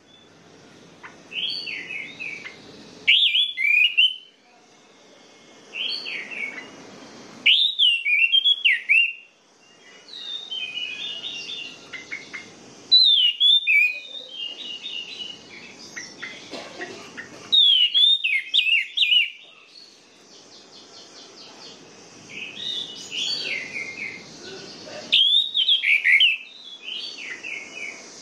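Orange-headed thrush (anis merah) singing loud, varied whistled phrases every few seconds, with quieter twittering notes between them.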